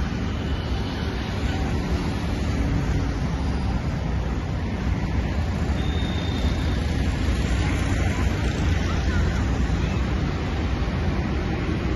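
Steady low rumble of road traffic mixed with wind buffeting the microphone.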